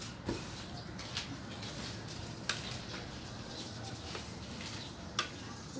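Four short, sharp clicks or taps spread over a few seconds, over a steady low background hiss.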